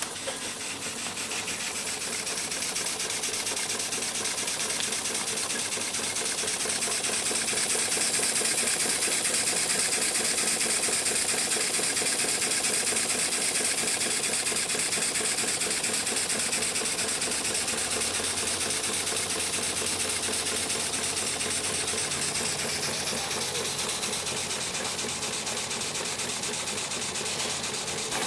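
Small live-steam model engine running with a rapid, even beat over a steady hiss of steam. It builds up over the first two seconds as the steam valve is opened, then runs steadily; this engine has no throttle.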